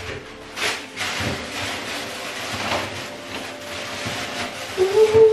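Plastic shopping bag rustling as groceries are handled and put away, with a few light knocks as a kitchen wall cabinet is opened.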